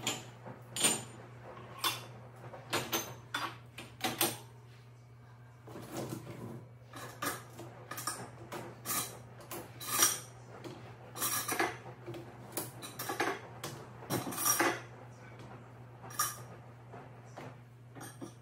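Cutlery and dishes clinking and clattering as they are set into a dishwasher's baskets and cutlery tray: a dozen or more irregular metallic clinks, loudest about a second in and again around ten and fourteen seconds.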